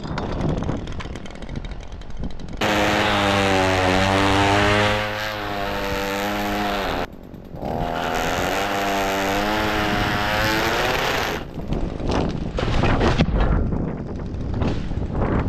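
Chainsaw running at high revs in two long runs with a short break between, its pitch wavering and sagging under load in the first run. Irregular knocks and clatter come before and after the runs.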